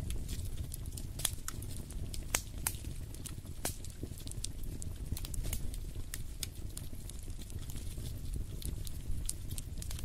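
Wood fire in a fireplace crackling, with irregular sharp pops and snaps over a steady low rumble.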